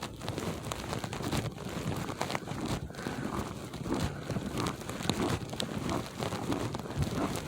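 Footsteps crunching through snow and ice, an irregular crackling, with wind blowing across the microphone.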